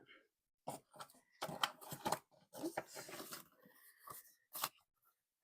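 Irregular paper rustling and light clicks of cash bills and paper being handled, in short scattered bursts.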